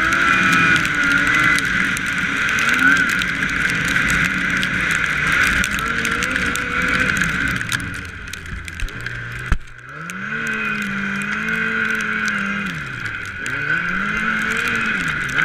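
2006 Yamaha Apex snowmobile's four-stroke four-cylinder engine running under way, its revs rising and falling with the throttle. There is a sharp knock about nine and a half seconds in. The engine then dips and revs up and back down twice.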